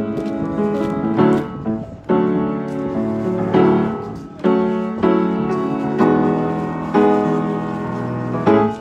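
Acoustic upright piano being played: full chords struck roughly once a second, each left to ring and fade before the next.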